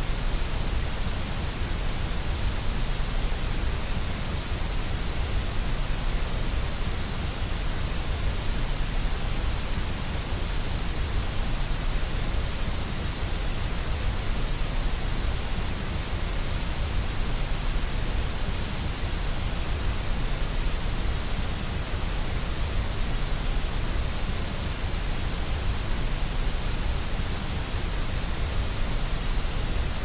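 Steady white noise: an even, unbroken hiss with no change in level or character.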